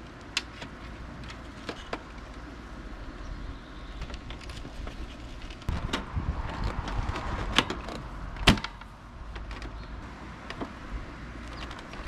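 Plastic front panel of a window air conditioner being handled and pressed back onto the unit: scattered plastic clicks and knocks, with a louder stretch of rattling and scraping about six to eight seconds in and a sharp snap near nine seconds.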